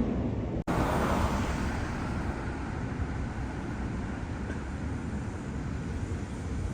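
Steady running rumble of a moving train, with a brief dropout just under a second in.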